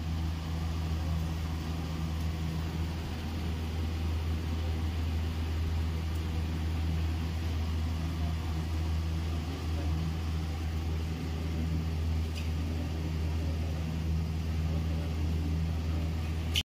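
Steady low mechanical hum of a running machine, unchanging throughout.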